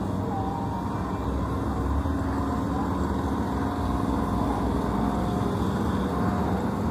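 Motorcycle engine running in the street, a steady low hum.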